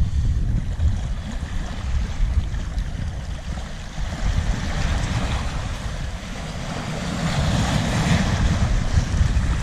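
Wind buffeting the microphone over the wash of small waves breaking on shoreline rocks; the surf swells louder about seven to nine seconds in.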